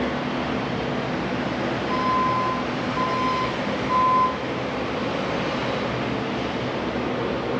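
A vehicle's reversing alarm beeping three times, about a second apart, over a steady loud hum.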